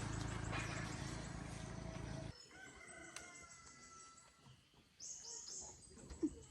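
An engine running with a steady low chug that cuts off abruptly about two seconds in. A rooster crows faintly after it.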